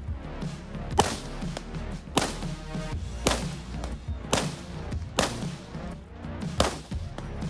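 Six shots from a Heckler & Koch MR223 semi-automatic .223 rifle, fired at a steady pace of about one a second, over background music with a steady beat.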